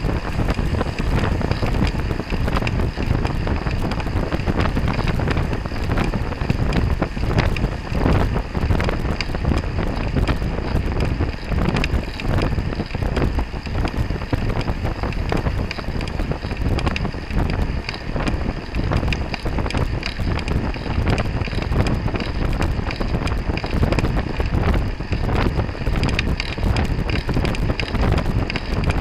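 Steady wind noise buffeting the microphone of a camera on a racing bicycle riding at speed in a pack, with rushing road noise underneath.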